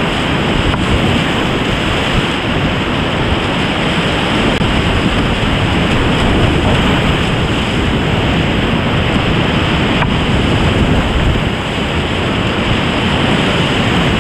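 Whitewater rapids rushing loudly and steadily around a kayak running through them, heard from a camera close to the water.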